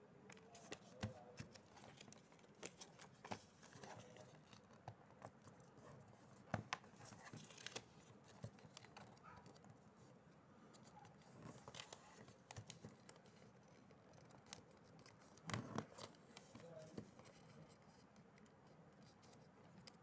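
Faint rustling and crackling of origami paper being folded and creased by hand on a table, with scattered light clicks and a louder burst of handling about three-quarters of the way through.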